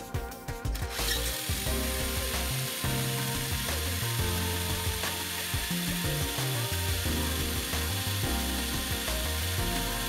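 DeWalt cordless drill boring into a rusted-solid bolt on a cast-iron part, the bit grinding steadily through the metal to split the seized bolt; it starts about a second in.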